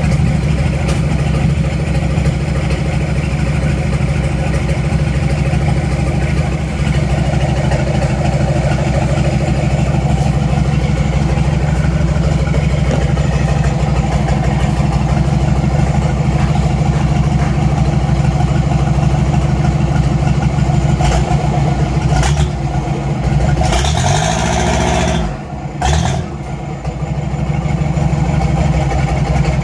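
Mitsubishi 4D31 four-cylinder diesel engine of a cargo boat running steadily. About 24 seconds in, the revs drop and then climb again, with a brief rush of noise.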